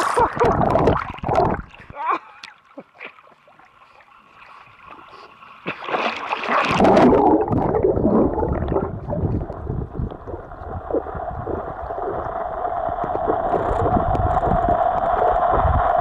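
Pool water splashing and gurgling as a Boston Terrier swims up close. From about six and a half seconds in, the sound turns into a steady, muffled rush and gurgle heard from under the water surface.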